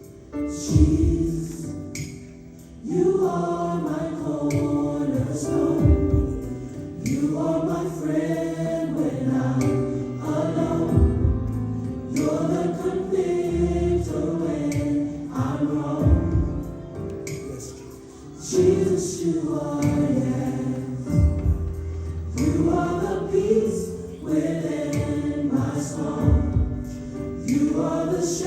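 Gospel song with a choir singing over a band, with a steady bass and drum beat.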